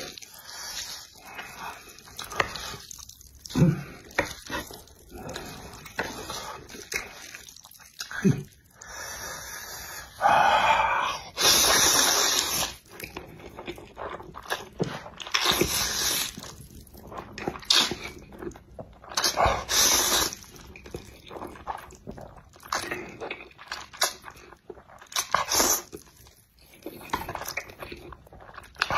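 Close-up mouth sounds of a person eating saucy instant noodles with chopsticks: soft clicks and wet stirring, then long loud slurps every few seconds, starting about ten seconds in, with smacking chewing between them.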